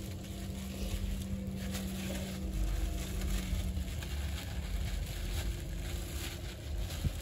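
A steady low engine hum with wind rumbling on the microphone, and faint crinkling of a plastic bag being shaken and twisted shut.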